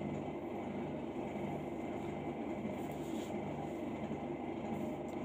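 Steady low hum of machinery in the background, with a few faint light ticks or rustles.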